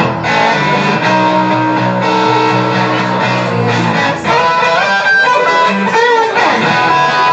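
Electric guitar played through a small Vox combo amp: a blues phrase of held notes, with bent notes in its second half.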